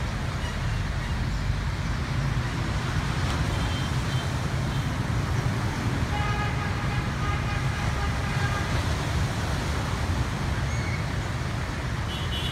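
Steady low rumble of road traffic, with a held horn-like tone lasting a few seconds about halfway through.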